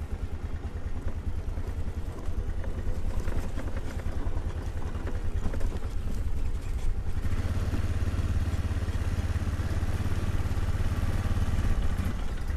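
Engine of a snow-plowing vehicle running steadily with a rapid low pulsing as it drives and plows down the road. It is nearly out of fuel, and the driver takes its hesitation on the way down as the sign of that.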